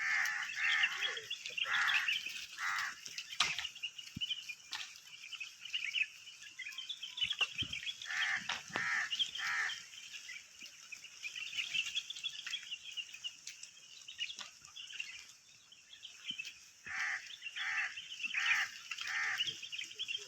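Outdoor birdsong: a bird gives runs of short, repeated calls, three to five at a time, several times over the steady chatter of other birds.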